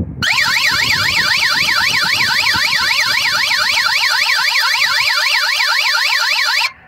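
A white horn-type house-alarm siren, wired in as the siren of an aftermarket Auto Shield car alarm, sounding a loud warbling wail that sweeps rapidly up and down several times a second, then cuts off suddenly near the end. The alarm has been triggered on purpose as a test.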